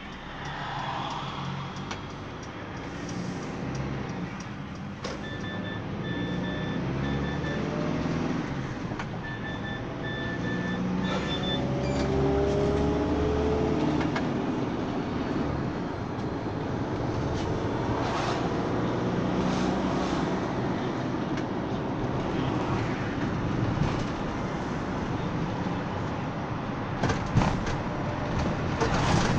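Mercedes-Benz Sprinter minibus heard from inside the passenger cabin while driving: engine hum and road noise, the engine pitch climbing as it accelerates about twelve seconds in. A short high beep repeats in two runs, about five and nine seconds in, and a few sharp clicks or rattles come near the end.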